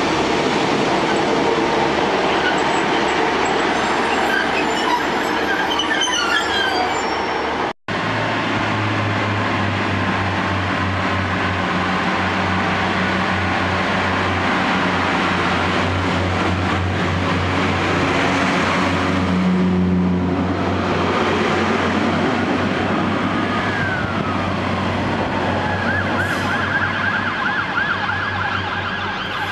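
Diesel trains at a platform: first a Northern diesel multiple unit moving, with a few high squeals, then, after an abrupt cut, a Class 142 Pacer railbus's diesel engine running with a steady low drone as the unit pulls away. Near the end a high wavering whine comes in.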